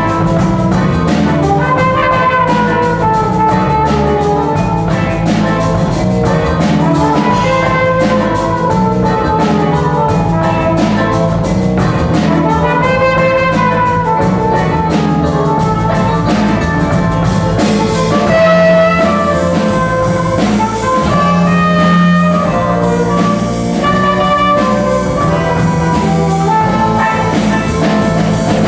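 Seven-piece jazz band playing live, with horns, guitar, keyboard, bass and drum kit: a brass or reed melody line over a walking low part and a steady drum beat.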